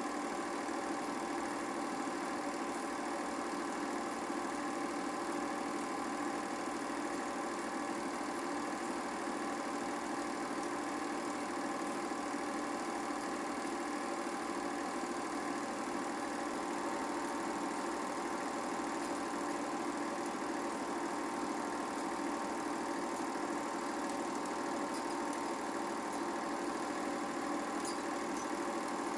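8mm film projector running with a steady mechanical whir and hum.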